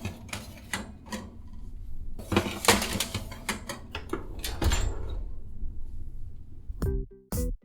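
Kitchen clatter: a run of knocks, clinks and scrapes of cookware being handled, busiest about two to three seconds in. Music with a steady pulse starts near the end.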